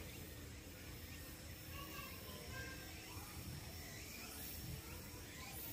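Faint outdoor background noise: a low steady rumble with a few faint, short chirps scattered through it.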